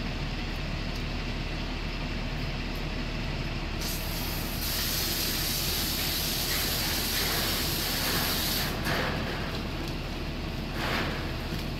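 Fire hose spraying water onto smouldering burnt rubbish, a loud hiss of spray and steam starting about four seconds in and stopping about five seconds later, over a steady low rumble.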